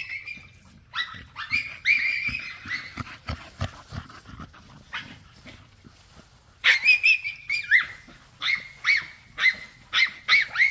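American bully dog whining and yelping in high-pitched calls. It gives a cluster of calls in the first few seconds and a longer drawn-out whine past the middle, then short yelps about twice a second near the end.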